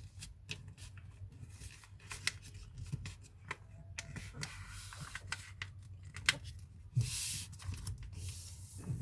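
A sheet of printer paper being folded and creased by hand: a run of short, crisp paper crackles and rubs, with a longer rubbing swish about seven seconds in as a fold is pressed down.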